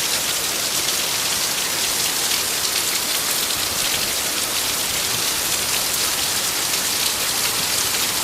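Heavy rain falling steadily, a dense even hiss of drops hitting the ground.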